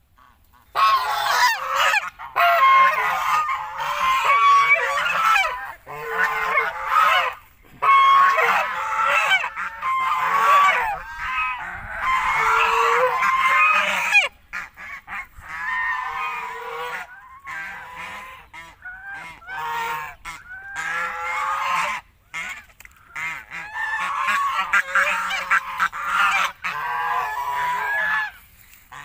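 A flock of domestic geese honking loudly, many calls overlapping. The calls start about a second in and go on with only a few short breaks.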